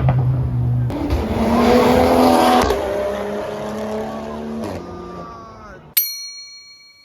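Car engines revving hard and pulling away, the pitch climbing and then falling as a car drives past, with some tyre squeal. About six seconds in, all of this cuts off abruptly and a single bright ringing chime sounds and fades.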